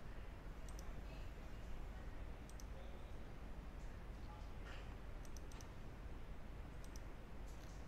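Computer mouse clicking: a few faint, sharp clicks scattered through, with a quick run of clicks a little past the middle, over a low steady hum.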